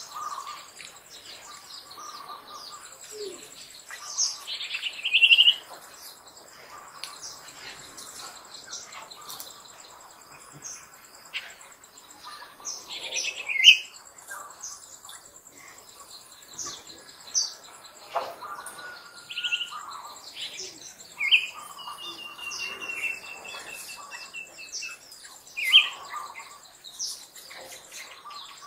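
Short high-pitched chirping calls every few seconds, loudest about halfway through, with one long level whistle about three-quarters of the way through, over a steady high insect whine.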